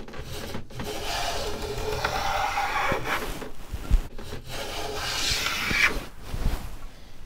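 Large Stanley hand plane taking three long passes along the edge of a wooden fretboard, a rasping hiss of shavings with each stroke and a sharp knock about four seconds in between strokes. Each pass follows the board's edge to plane in a compound radius, 16 inch at one end to 14 inch at the other.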